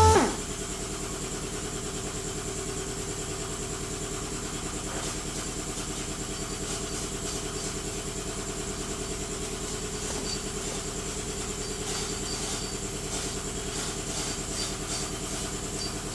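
Short-throw 3/32-inch random-orbit (DA) sander running steadily as a hum, wet-sanding clear coat with a 3000-grit disc. Its pitch and level drop sharply at the very start, and faint ticks come through the second half.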